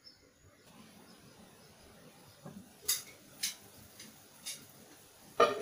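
Sugar water boiling in a pot on an induction cooktop, a faint steady hiss. Several sharp clicks come between about three and four and a half seconds in, and a louder clink near the end as the glass lid is lifted and handled.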